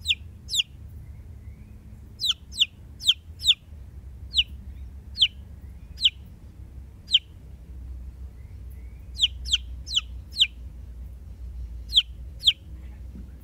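Young white silkie chick peeping: short, high calls that fall quickly in pitch, some single and some in quick runs of three or four, over a steady low rumble.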